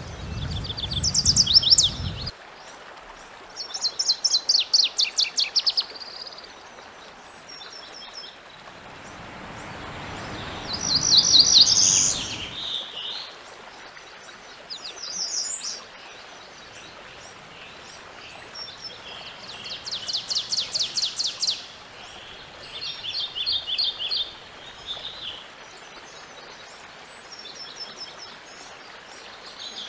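Songs of several North American wood warblers in succession, each a high, fast run of rapidly repeated notes lasting a second or two, separated by the hiss of outdoor field recordings. A low rumble sits under the songs at the start and again about ten seconds in.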